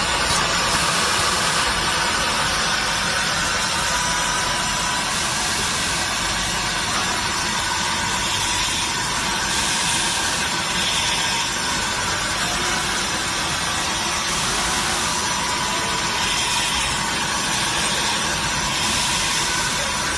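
Automatic in-line PCB depaneling router running: a steady hiss with a faint high whine, from the router spindle and machine working over a panel of circuit boards.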